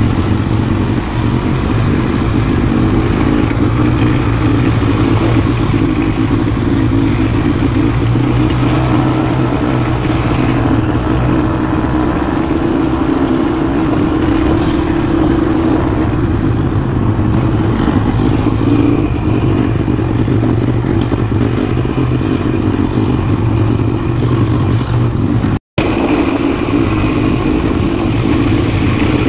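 ATV engine running steadily, holding an even pitch, with a split-second gap in the sound near the end.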